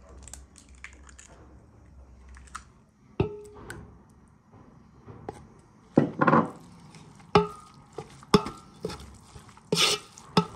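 Kitchen handling sounds: a few light cracks from an egg, then a wooden spoon stirring rice in a metal pot. The spoon scrapes and knocks against the pot several times, some knocks ringing briefly.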